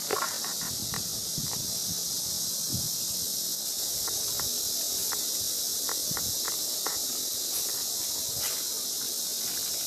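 Steady high-pitched insect drone, with a few faint light clicks in the middle.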